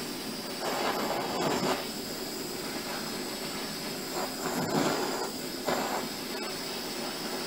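Handheld kitchen blowtorch flame hissing steadily as it caramelizes a sugar topping, swelling louder a few times.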